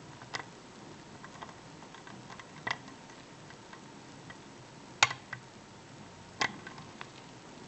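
Lock picking in a 5-pin Evva euro cylinder: a thin steel hook pick and a tension bar clicking against the pins and keyway. There are four sharp clicks, roughly every two seconds, with faint small ticks between them.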